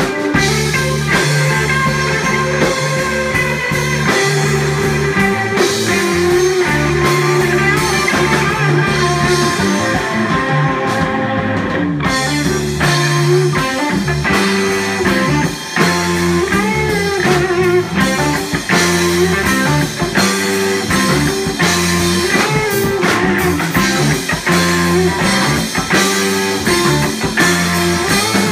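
Rock band playing a bluesy instrumental passage: electric guitar lines with bends over steady bass and drums.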